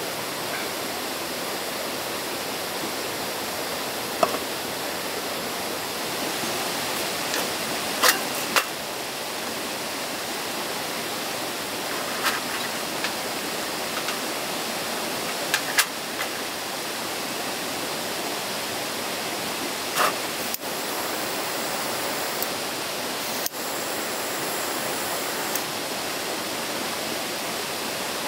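Steady rushing of flowing water, with a few short, sharp clicks and knocks scattered through it.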